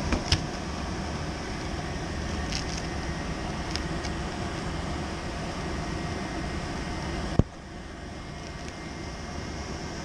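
Steady rushing airflow and blower noise from a running HVAC fan powered box, with light clicks and one sharp knock from the filter being handled at the unit. The rush drops noticeably right after the knock.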